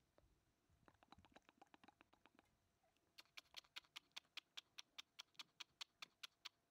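Faint scattered ticks, then from about three seconds in a rapid, even run of sharp clicks, about six a second, lasting some three seconds.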